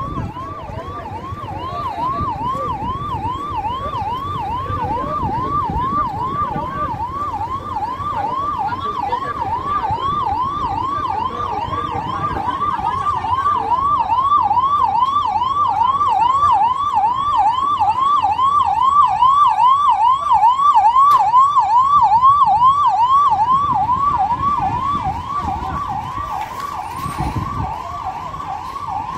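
Fire engine's electronic siren on a fast yelp, sweeping up and down about three times a second. It grows louder as the truck draws near and passes close by, then eases off near the end, with the truck's engine rumbling underneath.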